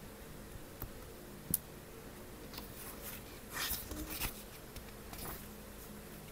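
Two light clicks as a gel pen is put down, then the paper pages of a small hardback book rustling as they are leafed through and turned, the rustling bunched together about halfway through.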